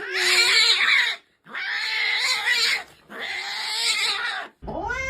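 A cat yowling in three long, harsh cries of about a second each. Near the end a clearer meow rises and falls.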